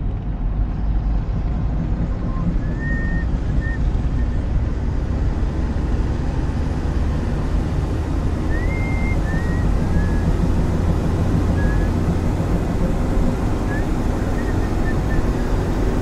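Car driving along a winding road, heard from inside the cabin: a steady low rumble of engine and tyre noise. A few short, faint high chirps sound over it now and then.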